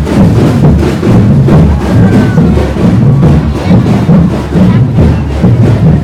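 A large group of drummers playing a loud, steady beat, with crowd noise underneath.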